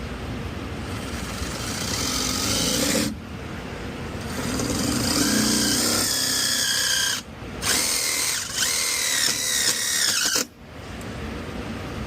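Cordless drill driving a screw in several runs of a few seconds each, its motor whine dropping in pitch as the screw tightens, then stopping.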